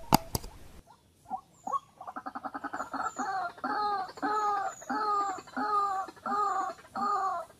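White-breasted waterhen calling: a quick run of short notes about two seconds in builds into loud repeated croaking notes, about two a second. Two sharp clicks come at the very start.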